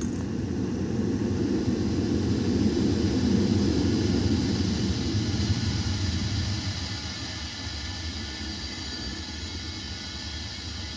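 A low rumbling drone with faint steady high tones above it, swelling over the first few seconds and then easing to a quieter, even level.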